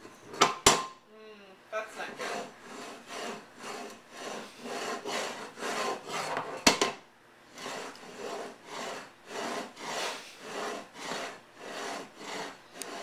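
Metal dog bowl pushed back and forth across a ceramic tile floor, its base scraping the tiles in a steady rhythm of about two strokes a second. The bowl knocks sharply against the tiles twice, about half a second in and again near the middle.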